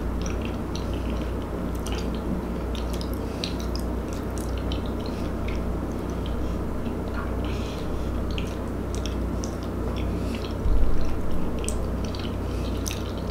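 Close-miked eating sounds: chewing with wet mouth clicks and smacks as food is taken from a wooden spoon, over a steady low hum. A dull low bump comes about eleven seconds in.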